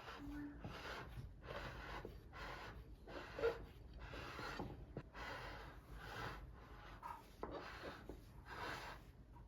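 Repeated short rubbing strokes in a steady rhythm of about two a second, stopping near the end.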